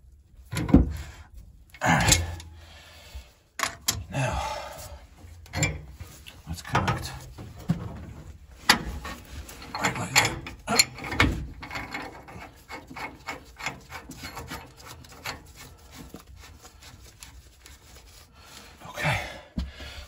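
Clinks, knocks and scraping of a wrench and threaded steel pipe fittings as they are turned and tightened.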